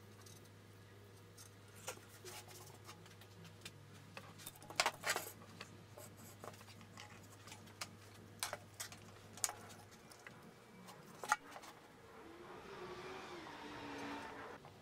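A soldering station, its iron stand and cables being set down and handled on a bench: scattered clicks and knocks, loudest about five seconds in, over a low steady hum that stops about ten seconds in. Near the end comes a softer rushing sound with a wavering tone.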